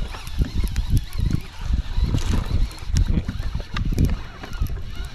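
Wind buffeting the microphone in uneven gusts, over water lapping at a boat's hull, with a few faint clicks in the middle.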